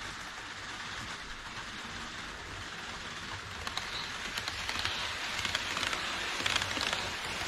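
HO-scale model of an E5 series Shinkansen running on the track: a steady rolling hiss with fine rapid clicking of wheels on rail, growing louder from about halfway as the train nears.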